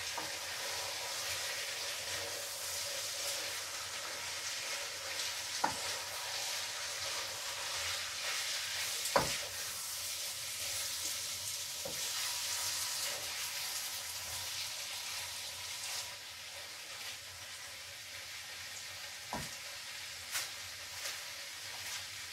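Pasta with a minced filling sizzling in oil in a nonstick frying pan on the hob, stirred now and then, with a few sharp clicks of the utensil against the pan, the loudest about nine seconds in. The sizzle eases a little in the last few seconds.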